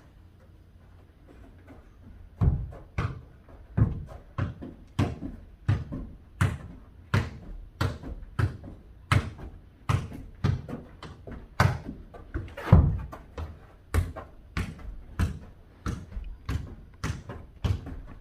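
Soccer ball being kicked and bouncing back and forth in a fast foot-volleyball rally: a run of sharp thuds, about two a second, starting about two seconds in.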